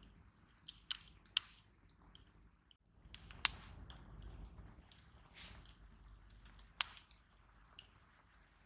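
Split firewood burning in an open campfire, crackling with irregular sharp pops over a low rush of flame. There is a brief gap about three seconds in.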